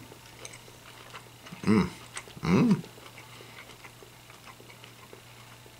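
A man chewing a mouthful of chicken stew, with faint mouth clicks. Twice he gives a short, closed-mouth 'mmm' of approval, a little under two seconds in and again about a second later.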